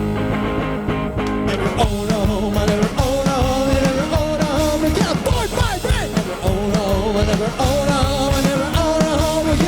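Folk punk band playing loud with drums, bass and guitar, with wordless sung voices over the top.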